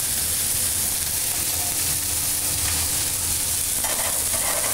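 Pork filet mignon medallions searing in hot oil in a frying pan: a steady sizzle.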